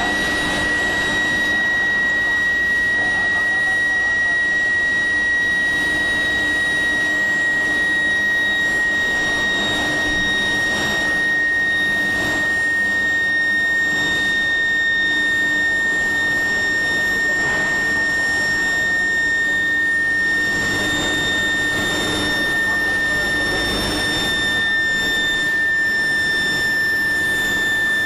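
Medium-frequency induction heating furnace heating steel billets, giving a steady high-pitched electrical whine with a lower hum beneath and some machine noise. The whine's pitch sinks very slightly over the half-minute.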